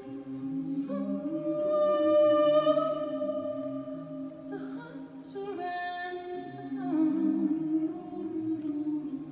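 Mixed choir of men's and women's voices singing held chords, swelling about two seconds in and again around seven seconds.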